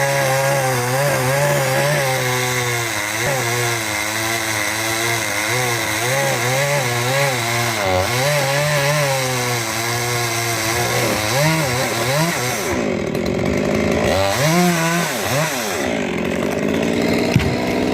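Stihl two-stroke chainsaw running hard, its engine pitch wavering steadily as it cuts wood. About eleven seconds in, it revs up and down in several quick swoops.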